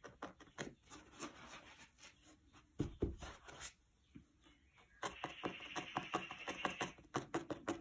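Felting needle stabbing repeatedly through wool fibres into a foam pad: a run of rapid soft taps that pauses briefly about four seconds in and then picks up again, faster and denser. A single dull thump comes about three seconds in.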